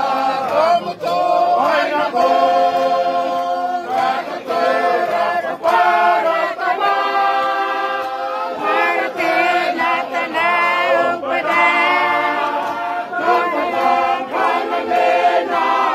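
A choir singing unaccompanied, many voices holding sustained notes and moving together from note to note.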